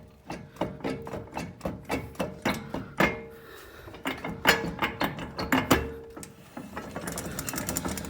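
A car wheel turned by hand on a jacked-up car, its hub giving off uneven clicks and knocks as it rotates, with a quicker run of ticking near the end: the noise of a bad wheel bearing.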